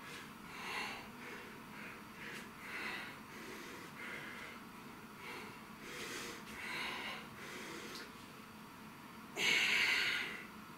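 A man's heavy breathing with the effort of dumbbell curls: a breath roughly every second, and one much louder, sharp exhale near the end.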